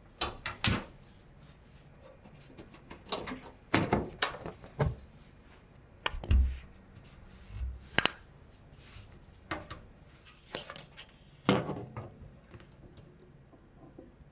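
Hands fitting parts into a PC case: irregular clicks, taps and knocks of plastic and metal, with a duller thump about six seconds in.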